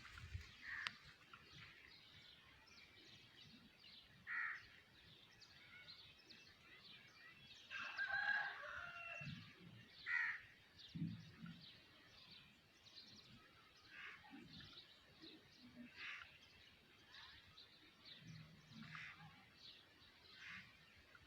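Faint bird calls: short scattered calls every few seconds, with a busier cluster of calls about eight seconds in, over a low background hiss.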